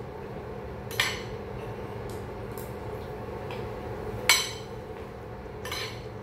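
Metal spoons and forks clinking and scraping on plates while eating, with a sharp clink about a second in, a louder one just after four seconds and a few fainter taps between. A steady low hum runs beneath.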